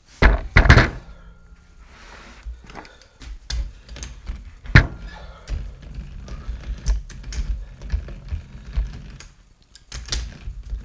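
Heavy steel three-jaw lathe chuck set down on a wooden board, with two loud knocks near the start. Scattered clicks and taps of metal parts and tools being handled follow, with another sharp knock about halfway.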